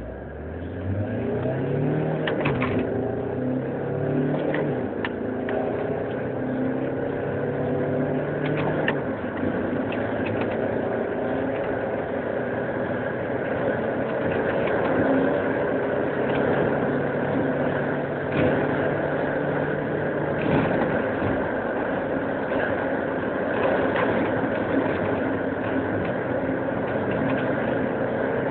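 Volkswagen Golf Mk3 accelerating hard from a standstill, heard from inside the cabin: the engine note climbs in each gear and drops back at several quick upshifts in the first ten seconds, then rises slowly in a high gear at around 140 km/h with road and wind noise.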